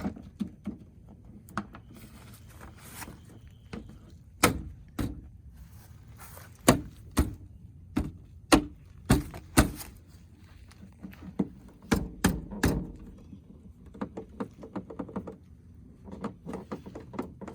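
Door trim panel being fitted back onto a Jeep Wrangler TJ door: about a dozen sharp knocks and thunks in small groups as it is pressed and pushed into place, then a run of quicker, lighter clicks near the end.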